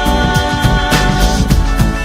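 Background music with a steady beat and held sung or instrumental notes.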